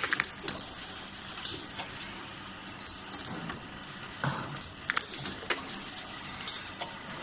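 Automated charcoal filter making machine running: a steady mechanical whir with a faint high whine, broken by irregular sharp clacks and clicks from its moving mechanisms, a cluster right at the start and more about four to five and a half seconds in.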